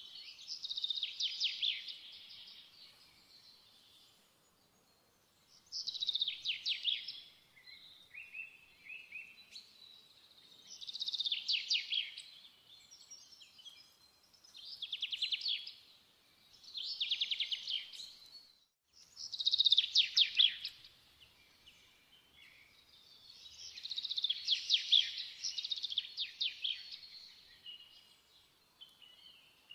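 A songbird singing in short, fast trilled phrases, each a second or two long, with pauses between them.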